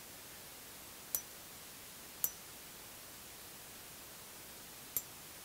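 Three sharp metal-on-metal hammer blows on a chisel held in tongs, cutting into the edge of a hand-forged iron blade. The first two blows come about a second apart and leave a brief high ring; the third comes near the end.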